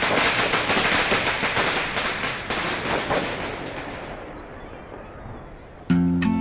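New Year fireworks bursting and crackling in rapid succession, many pops overlapping, dying away over the last few seconds. Strummed acoustic guitar music cuts in suddenly near the end.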